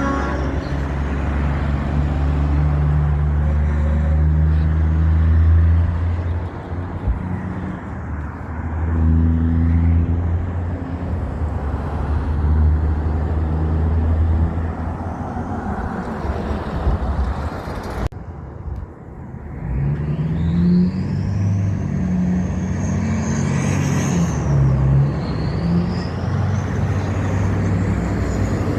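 Big trucks' diesel engines running loud as they pass. The sound breaks off sharply about eighteen seconds in, and a second truck follows with a high whistle rising and falling over its engine.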